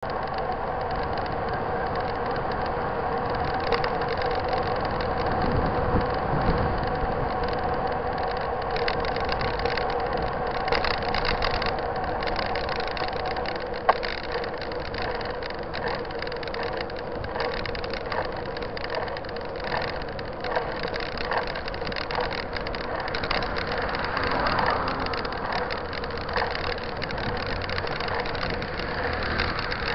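Mountain bike rolling over asphalt, heard from a camera mounted on the bike: steady tyre and wind noise with a constant hum, rattles and clicks over bumps in the road, and one sharp knock about halfway through.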